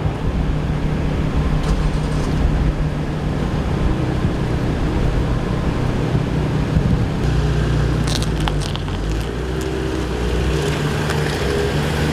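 A vehicle engine running with a steady low rumble. A few brief clicks come about eight seconds in.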